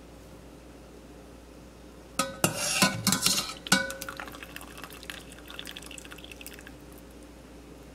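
A wire mesh skimmer knocking against a stainless steel stockpot as it scoops boiled potato chunks out of the cooking water, with a few ringing metal clanks and water splashing about two seconds in. Water then trickles and drips from the skimmer back into the pot, fading away.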